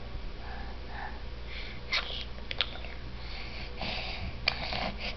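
Baby sniffing and breathing noisily through her nose while eating, with a few short sharp clicks mixed in.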